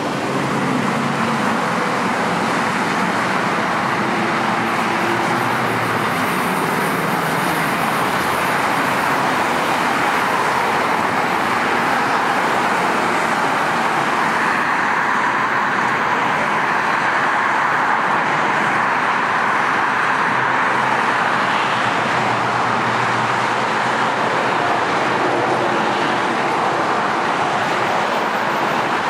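Steady noise of moving vehicles, an even rushing sound with no distinct events.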